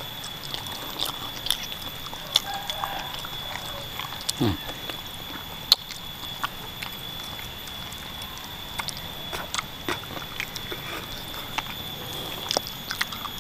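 Close-miked chewing and sucking on soft-boned chicken feet, with many scattered wet smacking clicks and a short slurp.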